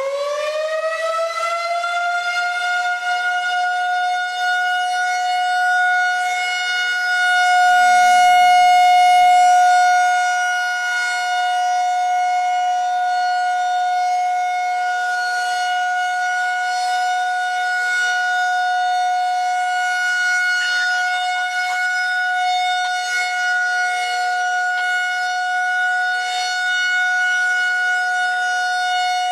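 Federal Signal 2001-130 outdoor warning siren sounding its monthly test: it finishes winding up in the first couple of seconds, then holds one steady high tone at full speed. The sound swells briefly about eight seconds in and then eases back.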